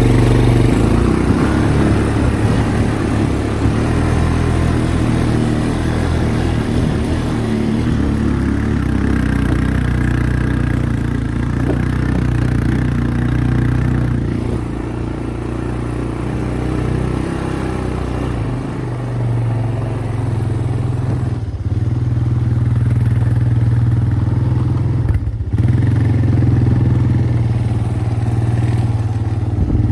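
ATV engine running steadily under way, its pitch and loudness shifting a little as it goes, with two brief drop-outs near the end.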